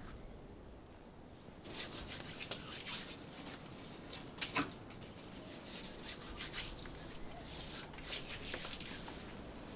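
Faint rustling and crackling of leaves on a potted plant as a fur-sleeved hand pulls and tears at them, starting about two seconds in, with a sharper snap about four and a half seconds in.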